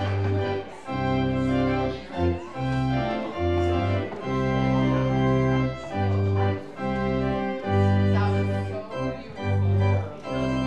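Organ music: held chords over a bass line that moves to a new note about every second, each note separated by a short break.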